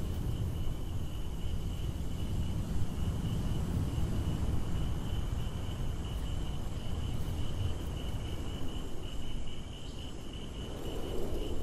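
Outdoor ambience: crickets give a steady, high-pitched, unbroken trill over a low rumble. The rumble eases off near the end.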